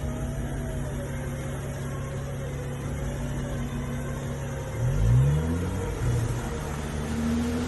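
Off-road 4x4 vehicle's engine running steadily, then revving up about five seconds in, with two smaller rises in engine speed near the end.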